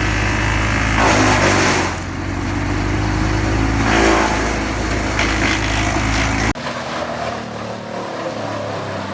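Wood chipper engine running steadily, with louder rushes of chipping noise about a second in and again about four seconds in as material is fed. About six and a half seconds in the sound cuts abruptly to a quieter, different machine drone.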